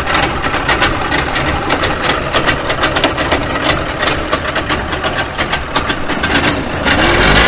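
Trabant 601's two-cylinder two-stroke engine running at idle with a rapid, uneven popping. It runs on a newly fitted electronic ignition after some 30 years laid up. Near the end it picks up and is revved.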